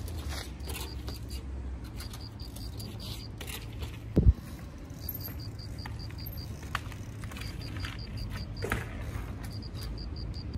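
Trials bicycle being ridden: light rattles and clicks from the bike, one heavy thump about four seconds in as it lands, and runs of rapid light ticking after that.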